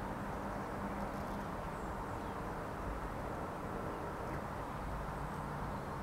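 Steady low rumble of distant road traffic, with a few faint, high bird chirps.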